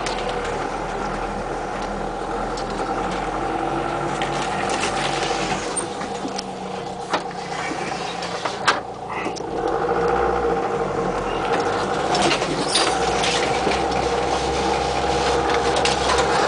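Off-road vehicle's engine running as it crawls along a rough forest track, with a steady whine under it and scattered knocks and rattles from the body over bumps, two of them sharp around the middle. The engine gets louder about ten seconds in.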